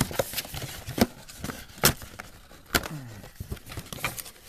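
Handling of trading-card boxes and packaging: four sharp clicks or knocks, roughly a second apart, with light rustling between.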